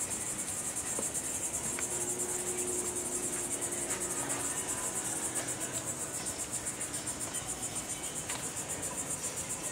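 Steady high-pitched insect chorus, a fast, even pulsing chirr, with a few faint clicks.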